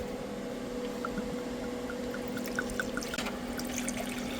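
Hot beef stew being ladled into a bowl: soft wet pouring with small wet blips and a few light clicks of the ladle, over a steady low hum.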